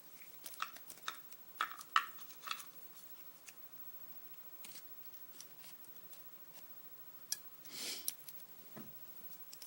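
Scattered light metallic clicks and taps from a brass pin-tumbler lock and small tools being handled, most of them in the first two or three seconds. A brief rustle comes about eight seconds in.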